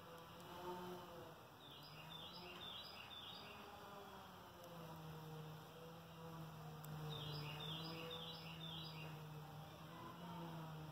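A bird singing two bursts of quick, high chirping notes, about two seconds in and again about seven seconds in, over a faint outdoor background with a low steady hum.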